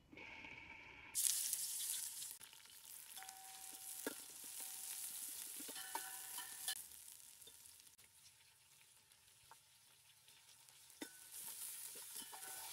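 Sliced onions dropped into hot oil in a stainless steel pot: a sudden loud sizzle about a second in that fades gradually, then a softer sizzle as a metal spatula stirs and scrapes against the pot. The sizzle swells again near the end.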